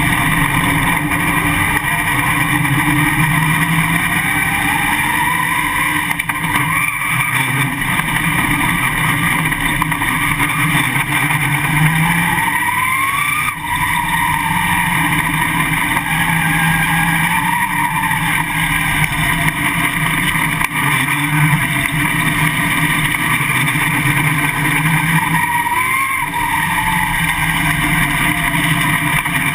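Winged dirt late model's V8 engine at racing speed, heard from inside the car, loud and continuous, its revs climbing and dropping back several times as it laps the track.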